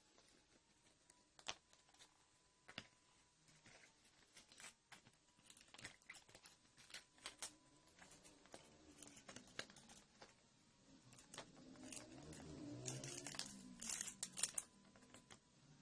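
Faint scattered clicks and taps, with a louder stretch of rustling and crinkling about twelve seconds in that ends in a few sharp clicks.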